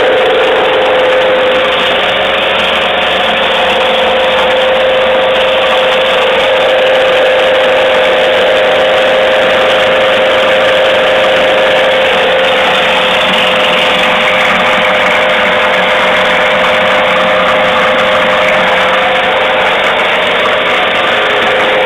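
Homemade electric grain grinder running steadily while grinding dried corn kernels into meal: a constant motor whine over a dense grinding rattle.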